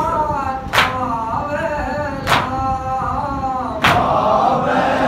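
A male voice chanting a Muharram lament (noha), with the mourners striking their chests together in a slow beat (matam): three sharp slaps about a second and a half apart. After about four seconds more men's voices join the chant.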